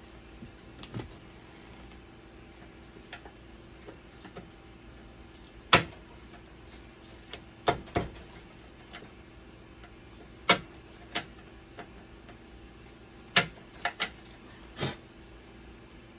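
Irregular sharp clicks and knocks, about ten of them, from hands and small parts working inside a dialysis machine's blood pump cabinet, over a steady low hum.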